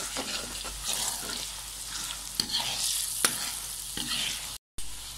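Browned chopped onions and ginger-garlic paste sizzling in hot oil in a kadhai while a metal spoon stirs them, with a couple of sharp knocks of the spoon against the pan. The sound cuts out for a moment near the end.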